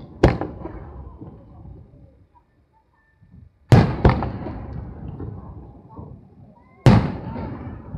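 Aerial firework shells bursting: four sharp booms, one just after the start, two close together about halfway, and one near the end, each trailing off in a long rumbling echo.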